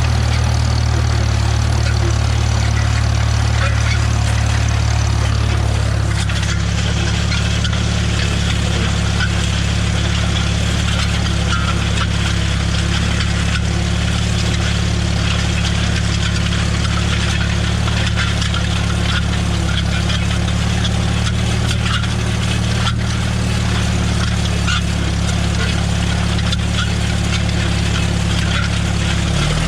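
Farmall M tractor's four-cylinder gasoline engine running steadily as the tractor is driven, its note shifting slightly about six seconds in and again just before the end.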